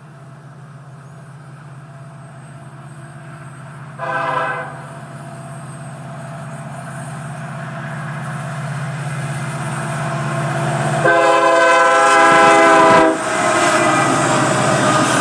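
Florida East Coast Railway diesel freight locomotives approaching a grade crossing, their low engine hum growing steadily louder. The air horn sounds a short blast about four seconds in and a longer, louder blast about eleven seconds in. Near the end the lead locomotive passes close by with loud rushing engine and wheel noise.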